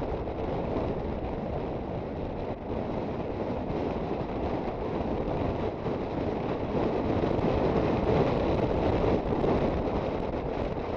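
Wind rushing over the microphone of an Aprilia Sportcity Cube 250 scooter under way, with the riding noise of the scooter blended into it. The rush grows louder from about seven seconds in, then eases near the end.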